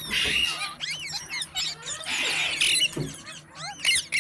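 Several green parakeets chirping and screeching in many short, overlapping up-and-down calls, with a brief rushing noise about two seconds in.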